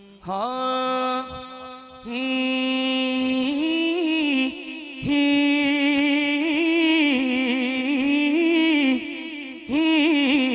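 A man's unaccompanied voice singing a naat, drawing out long held notes with gliding, wavering ornaments. The notes come in several long phrases broken by short pauses for breath, rising higher in the middle.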